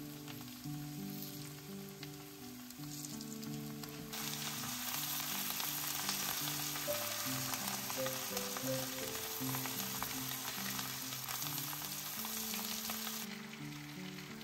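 Food frying in a hot pan: a hissing sizzle with fine crackles. It is faint at first, comes in loudly about four seconds in, and drops back down near the end.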